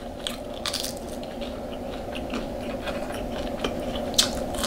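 Close-miked mukbang eating sounds: biting and chewing food, with small irregular crackles and clicks and a sharper click near the end.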